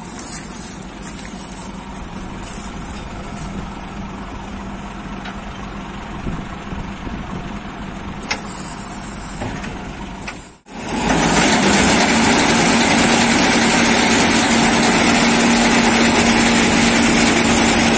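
John Deere W70 combine harvester running steadily. About two-thirds of the way through, the sound drops out for an instant, then returns much louder with a steady low hum and a hiss.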